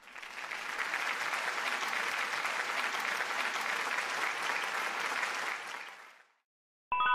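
Applause from a crowd, a dense patter of many hands clapping that swells in quickly, holds steady for about six seconds and then dies away. A bright bell-like chime strikes just at the end.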